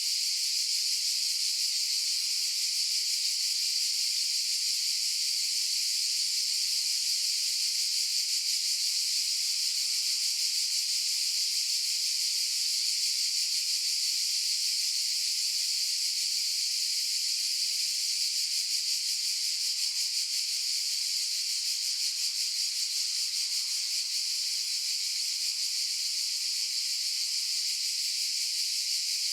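Chorus of cicadas buzzing in one continuous, steady high-pitched drone, with no breaks or swells.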